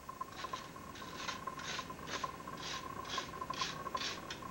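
Rhythmic scraping strokes of a hand tool, such as a file, worked back and forth over a forged steel piece clamped in a vise, about two to three strokes a second.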